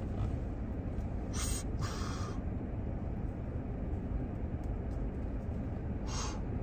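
A person drawing on a blunt and exhaling smoke: three short breathy hisses, two close together about a second and a half in and one near the end. Under them runs a steady low rumble of the car cabin.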